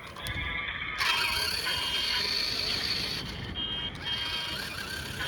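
Toy RC monster truck's electric motor and gearbox whirring as it drives, getting louder about a second in.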